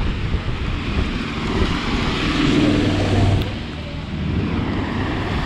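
Steady rain and wind noise on the camera's microphone. A vehicle's engine hum swells about two seconds in and fades away by about four seconds.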